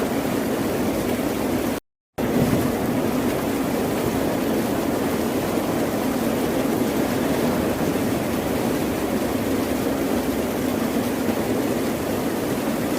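Steady wash of ocean surf, an even, unbroken noise of waves. It cuts out to silence for a fraction of a second about two seconds in.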